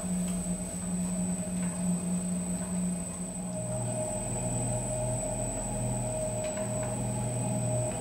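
Electric pottery wheel motor humming steadily as it spins. Its hum shifts lower about halfway through.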